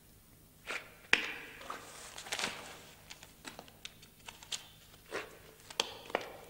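A person moving about on a hard floor: scattered footsteps and light taps and knocks, with a brief rustle like paper being handled a second or two in.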